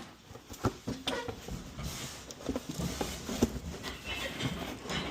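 Scattered light knocks and clatter of household items being handled and packed, with a few faint short pitched sounds in between.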